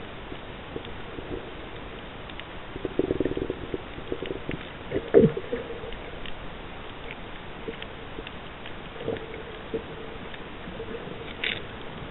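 Muffled underwater sound picked up by a submerged camera: a steady hiss with scattered clicks. There is a rattling burst about three seconds in and a louder short sound that falls in pitch about five seconds in.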